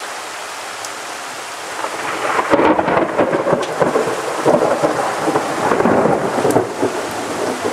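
Heavy rain falling steadily, with a long crackling roll of thunder that builds about two seconds in, rumbles on for several seconds and eases near the end.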